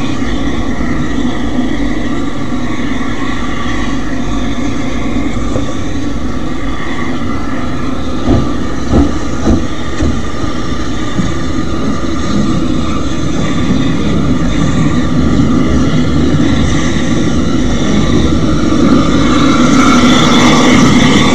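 LNER N7 class 0-6-2 tank steam locomotive No. 69621 hissing steam as it moves slowly. A few sharp clanks come a little before the middle, and the sound grows louder toward the end.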